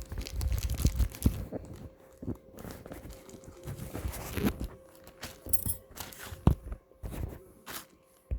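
Sealed plastic packaging crinkling and rustling as it is cut open, with irregular rustles and a few sharp clicks, the loudest about a second in and again past six seconds.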